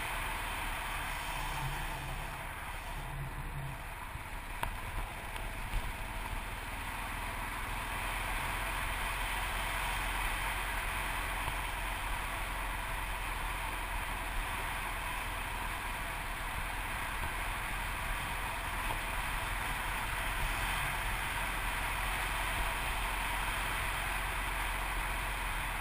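Yamaha TT600RE single-cylinder four-stroke motorcycle running steadily on a gravel road, mostly buried in a steady rush of wind and tyre noise, with a couple of brief knocks about five seconds in.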